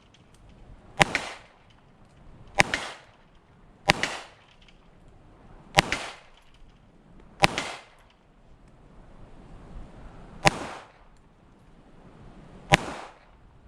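A 1911 pistol firing .45 ACP: seven single shots, one every second and a half or so, with a longer pause before the last two. Each crack is followed a moment later by a fainter second report.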